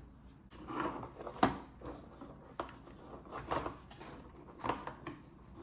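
Handling noises from unboxing a small drone: a series of separate clicks and short rustles, like plastic parts and packaging being handled and fitted together.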